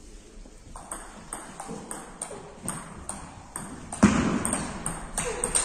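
Table tennis rally: the ball clicking off the bats and bouncing on the table, about four sharp ticks a second. A louder burst of noise breaks in about four seconds in, then the clicks go on.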